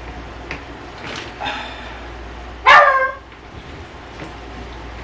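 Pet dog barking: a fainter bark about a second in and a loud, short bark near the three-second mark.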